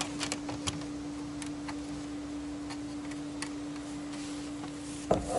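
Scattered light clicks and taps of a plastic dash radio bezel being handled, with a louder knock near the end, over a steady low hum.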